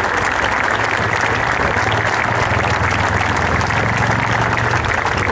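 A large crowd applauding steadily, many hands clapping at once.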